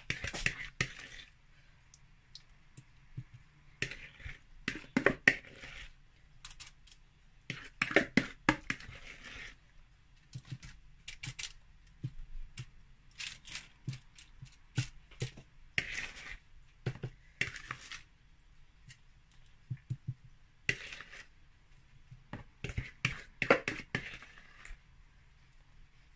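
Aluminium foil crinkling and rustling in irregular bursts as hands shift raw marinated chicken drumsticks around on a foil-lined baking tray, with quieter pauses between handlings.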